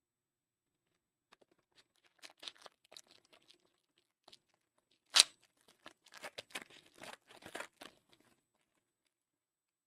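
Foil trading-card pack wrapper being torn open and crinkled: a run of crackling rustles with one sharp snap about five seconds in.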